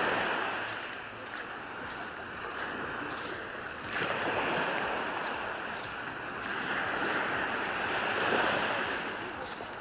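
Sea surf washing onto the beach. The noise of the waves rises and falls, surging suddenly about four seconds in and swelling again near the end.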